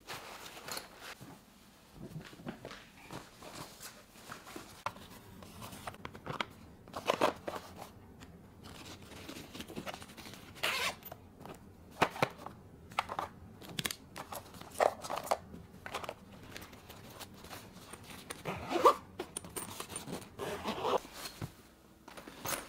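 Irregular small clicks, rustles and scrapes of objects being handled, some sharper knocks among them, the loudest about two-thirds of the way through.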